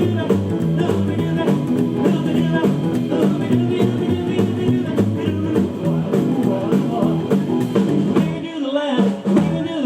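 A live rockabilly band playing with a steady driving beat and a bass line stepping from note to note. The bass and low end drop away briefly near the end.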